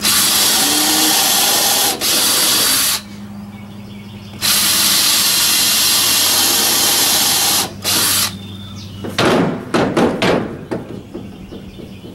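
Cordless drill boring holes into a 2x4 wooden board: two runs of about three seconds each with a short pause between, then a brief burst. A few sharp knocks follow near the end.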